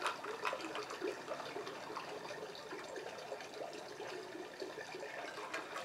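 Faint sipping from a stemmed glass of iced drink, with scattered small clicks of ice against the glass.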